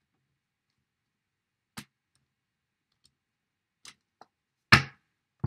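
Tarot cards handled on a table: a few sparse clicks and taps from the deck, then one louder knock near the end.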